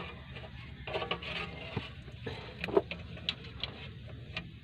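Scattered metal clicks and knocks, the loudest a little past the middle, as a tool works at the Hyundai Starex automatic transmission oil pan to break it free of its sealant, over a patter of dripping transmission fluid.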